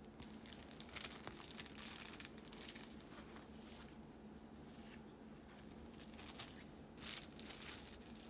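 Packaging being handled, crinkling and rustling in irregular short bursts, in two spells: near the start and again near the end.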